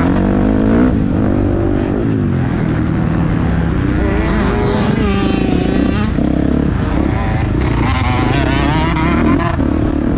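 Motocross bike engine revving hard, its pitch climbing and dropping again and again as the rider goes through the gears and backs off for corners and jumps.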